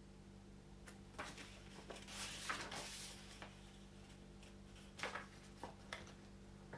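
Faint scattered knocks and rustling over a steady low electrical hum.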